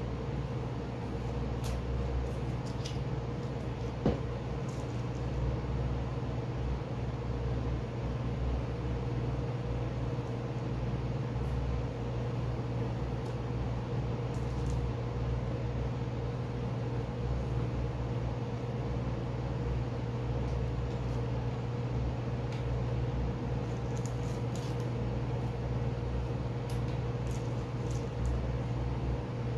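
Steady low machine hum filling the room, with a few faint rustles and crinkles of masking tape being peeled off a painted plastic helmet.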